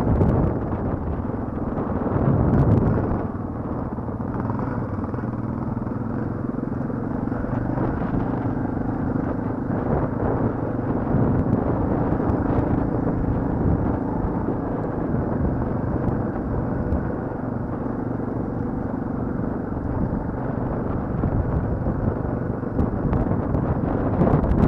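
Off-road motorcycle engine running steadily while the bike is ridden over a rough, stony track, heard close from the bike being ridden.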